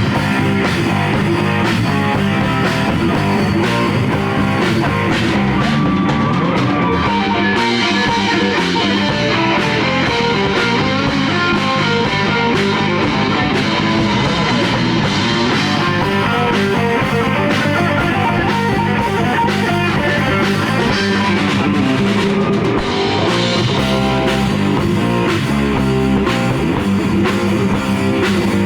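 A rock band playing live in a rehearsal room: electric guitar and drum kit, loud and continuous.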